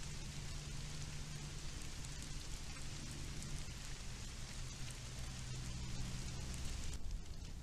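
Steady hiss with a low hum underneath, and no calls or footsteps standing out. About seven seconds in, the hiss changes abruptly where the recording cuts to another clip.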